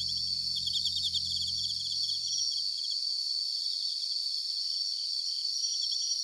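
Night chorus of crickets: a steady high trill with rapid chirps pulsing over it. A low steady drone underneath fades out about halfway through.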